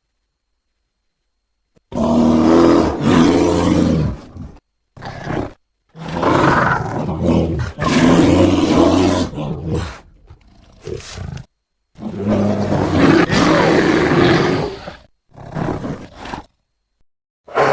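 A series of dragon roar sound effects: growling roars of varying length, from short ones to one about four seconds long, with brief silences between them. The first starts about two seconds in.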